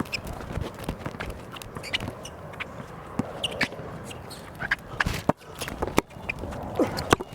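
Basketball bouncing on an outdoor hard court during play, with players' footsteps: irregular sharp knocks.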